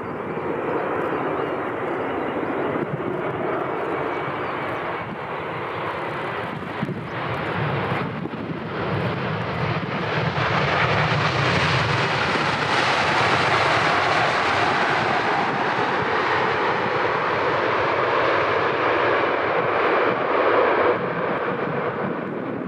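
Boeing 787 Dreamliner's twin turbofan engines running on a landing: a steady jet hum at first, then about ten seconds in, after touchdown, a louder, brighter rush as reverse thrust is applied, easing off near the end.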